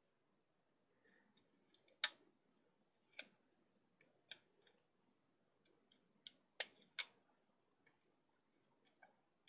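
Quiet, scattered light clicks and taps of rubber bands being stretched onto the clear plastic pegs of a Bandaloom rubber-band loom, about half a dozen of them. The sharpest comes about two seconds in, and a quick pair follows near the end.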